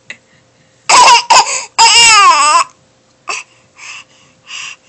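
Baby crying out loudly: a short outburst about a second in, then a longer wail that dips in pitch and rises again. A few faint short sounds follow in the second half.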